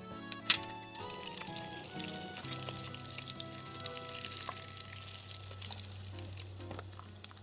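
Breaded croquettes frying in hot oil, a dense crackling sizzle that sets in about a second in, after one sharp click just before it, over background music.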